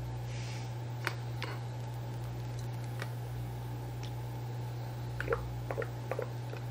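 Light plastic clicks and taps from a soap bottle and plastic measuring cups being handled while liquid castile soap is poured, scattered at first and bunching into a quick run of small clicks near the end, over a steady low hum.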